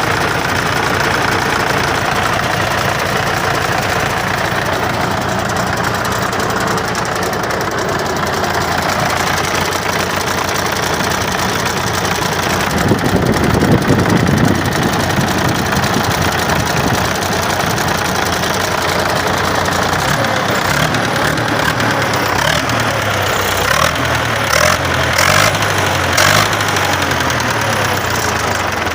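Engine running with a knocking sound, briefly louder about thirteen seconds in, with a few sharp clicks near the end.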